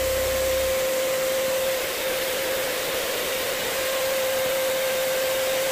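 Electric HVLP paint sprayer running steadily: the hiss of air and paint coming out of the spray gun, with a constant whine from the turbine motor.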